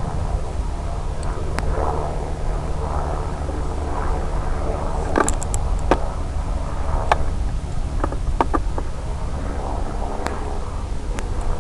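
Steady wind rumble on a small microphone, heavy in the bass, broken by a few sharp clicks and ticks from about five seconds in.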